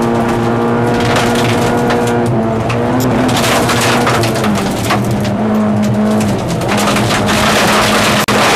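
Lada 2108 rally car's four-cylinder engine running hard, heard from inside the cabin, its note dipping and climbing a few times. Gravel crackles and rattles against the car throughout, and the sound drops out for an instant near the end.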